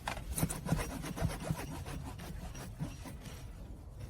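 Rasping, scraping strokes of a tire repair tool worked back and forth in a tire puncture, quick and irregular, busiest in the first two seconds.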